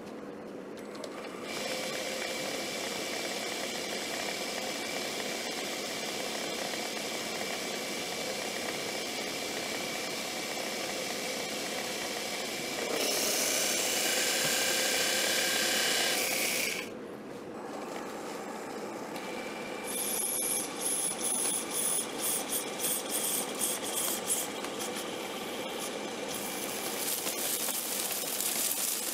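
Small metal lathe running with a steady motor whine while its turning tool cuts a piston blank. The cut grows louder for a few seconds in the middle, and later turns into a rapid, broken stutter.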